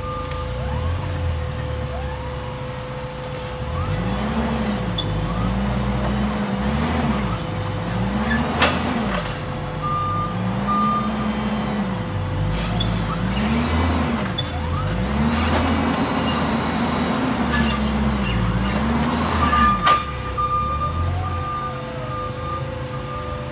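Heavy-equipment engine running, its pitch rising and falling in a string of swells about a second apart, as if under changing load while the new rubber track is worked on. A couple of sharp metal clanks.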